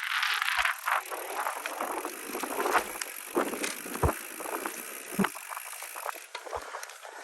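Mountain bike riding a rough, rocky trail: a steady rush of tyre and frame rattle, broken by several sharp knocks as the wheels hit rocks.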